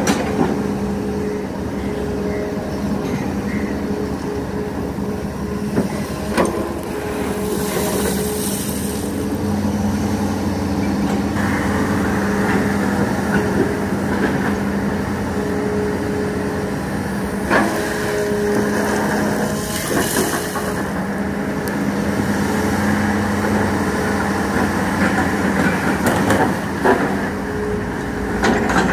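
Hitachi Zaxis hydraulic excavator's diesel engine running steadily under working load. A few sharp knocks come through, and twice there is a brief high hiss.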